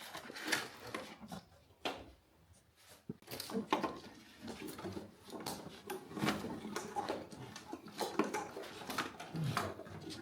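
Rover wiring harness being handled and pulled through a grommet: irregular rustling, scraping and light clicks of wires and plastic connectors.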